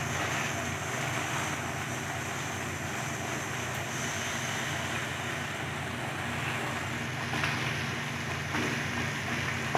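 Steady hiss with a low hum under it from the stove and the thickening milk, cornflour and potato batter cooking in a nonstick pan, with a few faint scrapes of a wooden spatula in the pan near the end.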